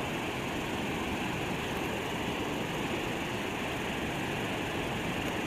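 Steady rush of flowing river current, an even noise with no distinct events.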